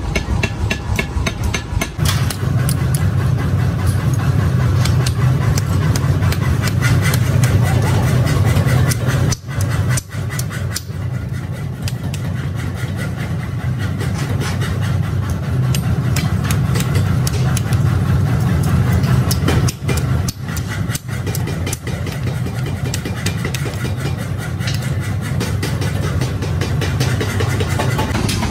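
Hand hammers striking steel on block anvils in quick repeated blows, over the steady drone of running workshop machinery.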